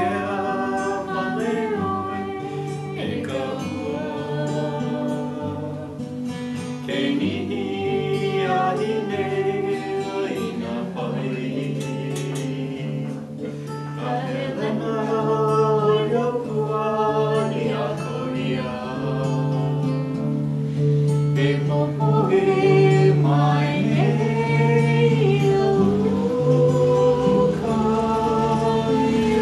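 A group of people singing a song together to a strummed acoustic guitar.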